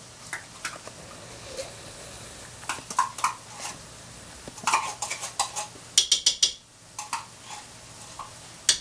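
Spatula scraping and clicking inside a small metal can as thick tomato paste is dug out into a crock pot, with a quick run of sharp taps against the can about six seconds in.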